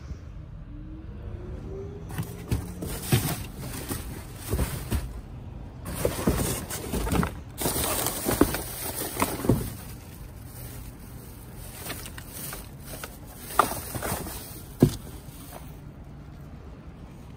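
Rummaging through a dumpster: a busy run of knocks, clunks and rustles as bags and items are shifted, thickest between about two and ten seconds in, with two sharp clanks near the end. There is a faint rising squeak about a second in.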